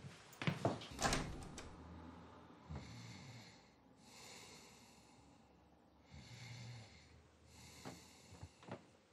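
A person breathing heavily, about four long breaths, after a few short knocks in the first second.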